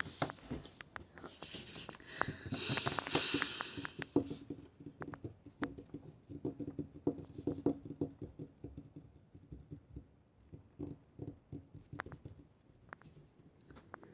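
Quiet scattered clicks and taps, with a breathy hiss about one to four seconds in and a faint low hum in the middle.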